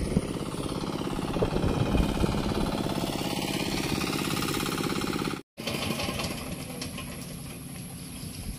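Small single-cylinder engine of a hand tractor (turtle tiller) running with a rapid, even chugging. The sound cuts out for a moment about five seconds in, then comes back quieter.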